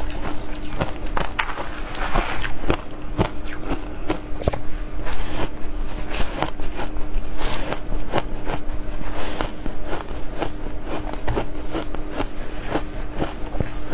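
Frozen shaved ice coated in matcha powder being bitten and chewed close to the microphone: a dense run of crisp, cracking crunches, with a steady low hum underneath.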